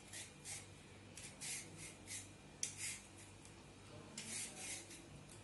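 Skin being scraped off a raw sweet potato, a run of short, faint scraping strokes with a pause of about a second past the middle.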